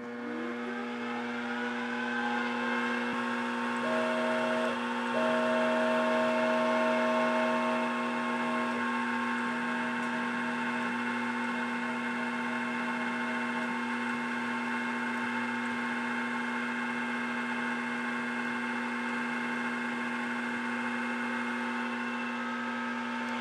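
Grizzly G0704 milling machine spindle starting up, its whine rising in pitch over the first couple of seconds and then running steadily. Shorter tones come and go between about 4 and 14 seconds in as the CNC axes are jogged with the spindle running.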